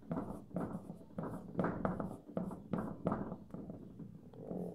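Marker pen writing on a whiteboard: a quick, irregular run of short strokes.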